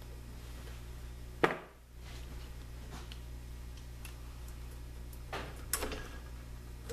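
Hands handling the wiring inside a Saeco Magic Deluxe espresso machine: one sharp click about a second and a half in, then a few softer clicks and rustles of wires and connectors near the end, over a steady low hum.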